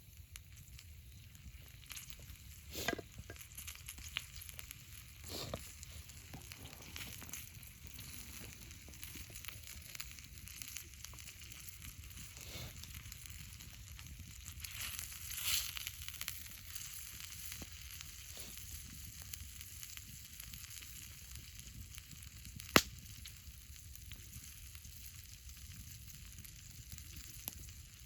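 Food sizzling in a pan over a campfire, a steady hiss with scattered pops and crackles and one sharp crack a little over twenty seconds in.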